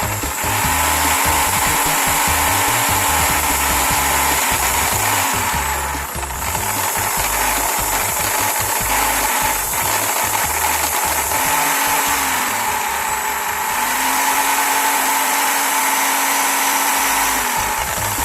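Electric drill running steadily as the motor of a homemade wood lathe, its motor whine held at a constant pitch with a brief dip about a third of the way in.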